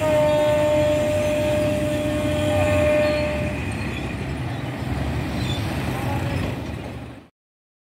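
Diesel locomotive horn sounding one long steady blast of about three and a half seconds as the train approaches, over a continuous low rumble; the sound cuts off suddenly near the end.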